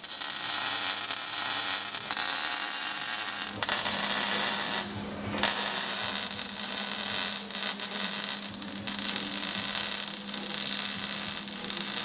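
MIG welder laying a bead on sheet metal: a steady crackling hiss over a low buzz, breaking off briefly a few times as the arc is stopped and restarted.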